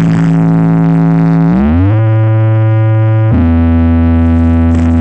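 Large outdoor sound-system speaker stack playing very loud synthesized tones for a sound check. A steady tone slides up in pitch about a second and a half in, holds, then jumps to a new pitch a little past the middle, much like a revving engine.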